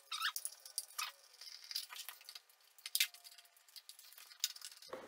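Light, irregular metallic clicks and clinks of a 5 mm Allen key working the bolts of a Honda XR650R's aluminium skid plate as it is being unbolted.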